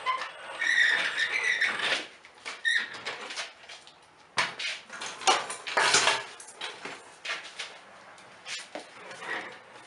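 Metal clattering, scraping and knocking, with a short squeak near the start, as a floor jack is handled and moved into place under the car.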